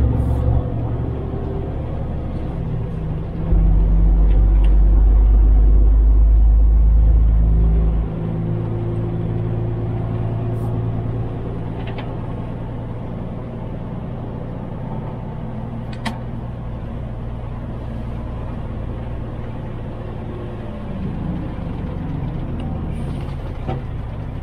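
Truck engine and road noise heard from inside the cab: a steady low drone. It gets suddenly louder about three and a half seconds in and drops back abruptly about four seconds later. A few faint clicks come through.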